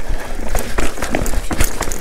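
Rock Machine Blizzard TRL full-suspension mountain bike coasting fast down a dirt trail without braking: tyres crunching over dirt and stones, the bike knocking and rattling over bumps in many quick sharp clicks, with steady wind rumble on the microphone.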